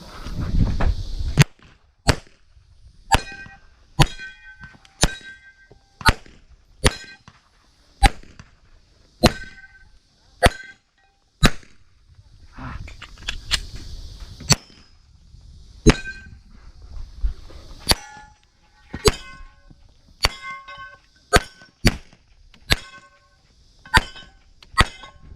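A string of 9mm shots from a Glock 34 pistol, about one a second with a couple of short pauses, many of them followed by the clang and ring of a steel target being hit.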